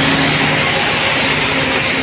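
Mercedes-Benz tri-axle dump truck's diesel engine running as the truck drives slowly past at close range. It is a steady low engine hum with a loud even hiss over it.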